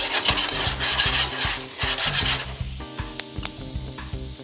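Carrot and sweet pepper strips sizzling in a hot frying pan as they are tossed and scraped with metal tongs, a rough scraping hiss that fades after about two and a half seconds. Background music with a steady beat runs underneath and is clearer near the end.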